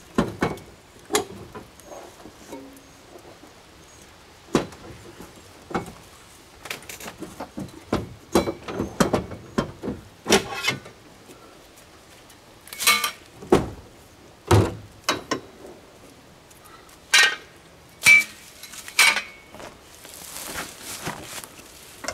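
Metal support braces of a pop-up camper being unfastened and handled: irregular clinks, clicks and knocks, with a brief scraping noise near the end.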